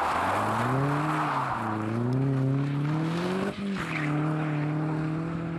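SEAT León rally car accelerating away through the gears: the engine note climbs, drops at an upshift about a second and a half in, climbs again, then shifts up once more after about three and a half seconds and holds steady. Tyre noise on the tarmac can be heard at the start.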